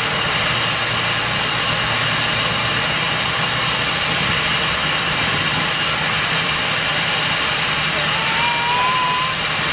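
Fowler steam ploughing engine running, a steady hiss of steam over the machinery. A faint rising whistle-like tone comes in about eight seconds in.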